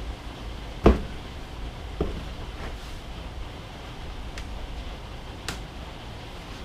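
Tools and parts handled on a workbench: a sharp knock about a second in, a lighter knock a second later, then a few faint clicks, over a steady low hum.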